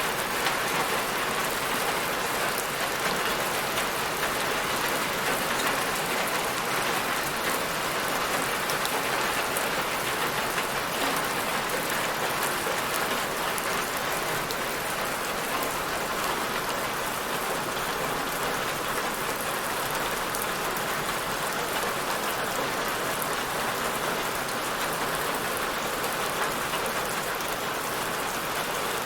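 Steady rainfall, an even hiss of drops pattering on a surface.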